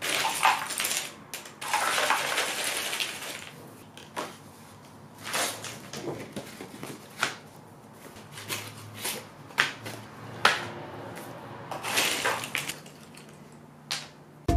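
Hands stirring loose cardboard jigsaw pieces in their box, a rattling rustle in two spells over the first few seconds. Then separate clicks and knocks as cardboard box parts and pieces are set down, with another short rustle near the end.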